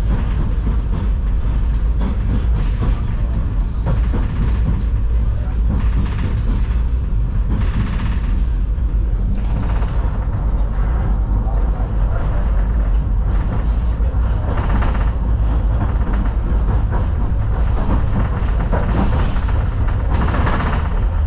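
Vityaz-M (71-931M) low-floor tram running, heard from inside the passenger cabin: a steady low rumble of the wheels on the rails and the running gear.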